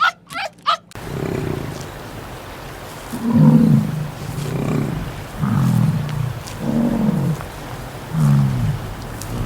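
A large animal giving a series of low grunting calls, about one a second. A burst of short, quick yaps ends just under a second in.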